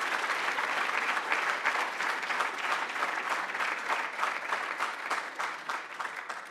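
Audience applauding: dense clapping at first, thinning to scattered separate claps and dying away near the end.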